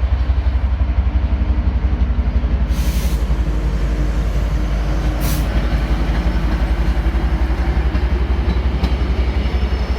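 Trinity Railway Express push-pull commuter train running past with a steady low rumble. Two short hisses come about three and five seconds in.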